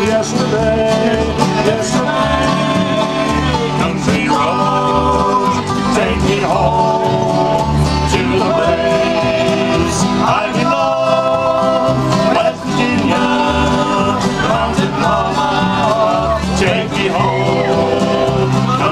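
Bluegrass band playing live on upright bass, banjo, acoustic guitars and fiddle, with a steady bass beat.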